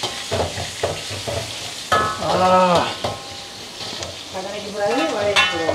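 Boiled kadalai frying in hot oil in a pan, sizzling, while a metal spoon stirs and scrapes it, with scattered clicks and pops through the sizzle. A person's voice sounds briefly about two seconds in and again near the end.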